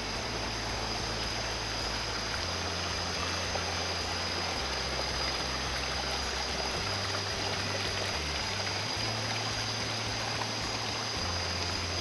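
Steady rushing of stream water running over rocks into a waterfall pool.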